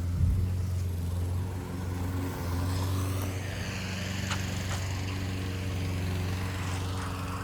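Steady low hum of a lawn mower engine running, with a faint rustle of wind in tree leaves rising in the middle.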